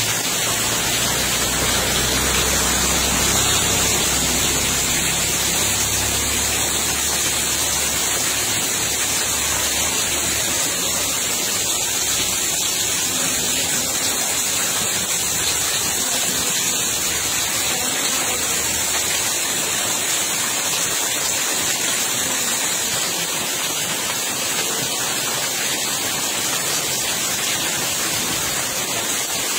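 Steady rush and hiss of water, a continuous even noise without breaks.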